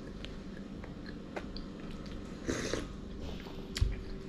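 A person chewing a mouthful of toasted bread, with small mouth clicks, and a soft low thump near the end.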